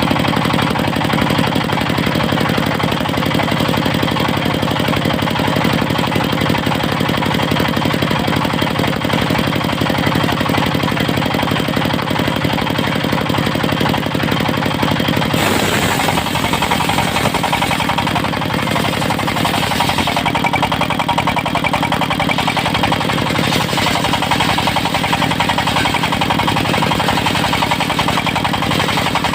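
Diesel engine driving a mobile circular sawmill runs steadily and loudly. About halfway through the sound changes suddenly and gains a brighter hiss over the engine.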